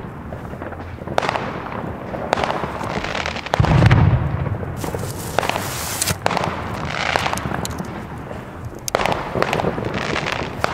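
New Year's fireworks going off all around: a steady run of bangs and crackling, with one deep boom about four seconds in and a brief sharp hiss a second later.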